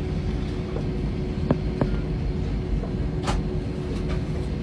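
Airliner cabin noise while taxiing after landing: a steady low rumble with a constant hum, two short clicks about a second and a half in, and a brief hiss past the middle.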